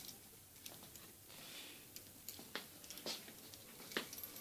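Quiet room noise with a few faint, irregularly spaced clicks and taps.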